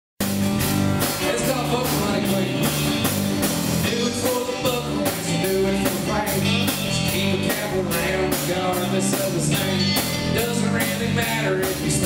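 Live Texas country band playing a song: electric guitar, acoustic guitar, electric bass and a drum kit keeping a steady beat.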